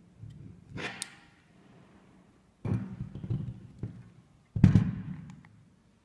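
Mechanical clunks and clicks of a RunnTech RT300 crane master controller joystick as its lever is worked through its positions and the cam-operated contact blocks switch. They come in three groups of knocks, the loudest a little after three-quarters of the way through.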